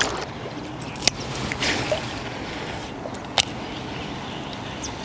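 Water lapping and sloshing against the shore edge, with two sharp clicks about a second in and again past the middle.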